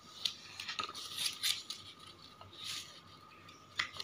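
A sheet of paper rustling and crinkling in short bursts as hands fold it and press the creases flat.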